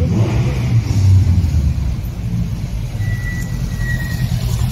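Deep, steady exhaust rumble from a BMW 6 Series convertible's quad-pipe exhaust idling in slow traffic. A brief thin high whistle sounds about three seconds in.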